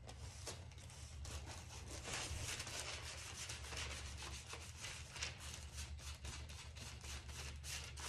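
A hand in a plastic bag rubbing and smoothing glued decoupage paper over a wooden board: a faint, continuous rubbing made of many quick short strokes.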